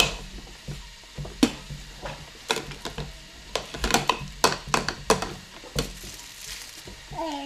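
Scattered sharp taps and clicks with a scratchy rustle, irregular and thickest midway, over a steady low hum. A short child's vocal sound comes near the end.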